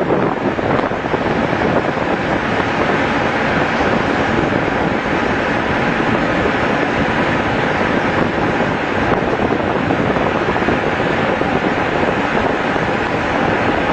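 Steady rush of wind buffeting the microphone over the wash of a rough sea, an even roar with no distinct tones or knocks.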